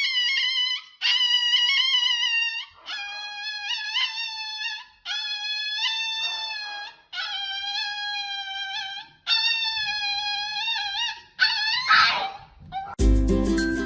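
A dog howling in a string of about seven long, high-pitched, wavering notes with short breaks between them, followed near the end by a brief noisy burst and then music.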